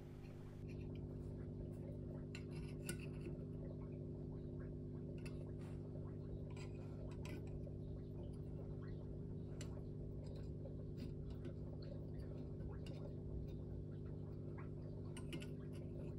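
Faint, scattered clicks and light scrapes of a metal vernier caliper being set against the ports of Mazda RX-8 13B rotary-engine intermediate housings, over a steady low hum.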